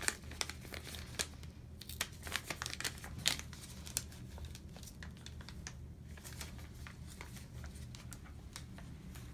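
Tegaderm transparent film dressing and its paper backing handled and peeled apart by gloved hands: crinkling and crackling, busiest in the first four seconds, then sparser.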